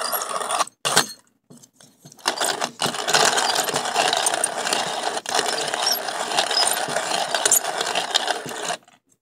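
Hand-cranked wooden coffee grinder with a ceramic burr grinding whole coffee beans: a steady gritty crunching and rattling as the handle turns. It stops briefly about a second in, resumes after about two seconds, and stops just before the end.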